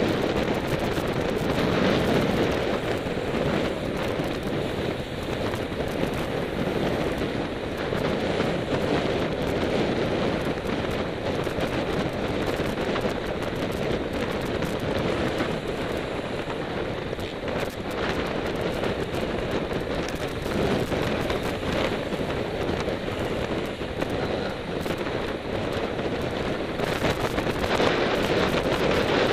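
Wind buffeting the microphone of a camera on a moving road bicycle: a steady rushing noise, thick with constant crackles and pops.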